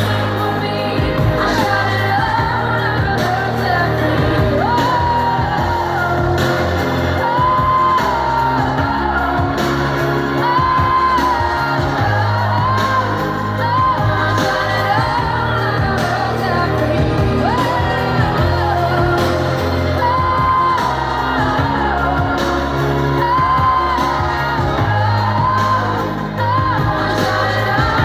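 Pop song performed live: a woman's lead vocal singing over a full band with a strong, steady bass line, amplified through a concert sound system.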